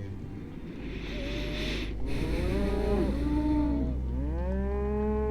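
Cattle on a drive mooing, several calls one after another and overlapping, the last one long and drawn out.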